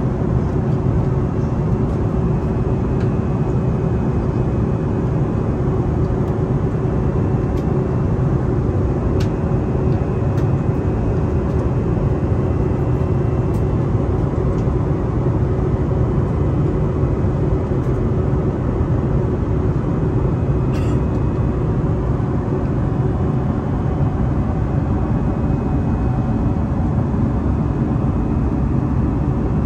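Steady cabin noise of an Airbus A340 airliner in flight: the even rumble of its engines and the rush of air over the fuselage, with a faint steady hum and a few soft clicks.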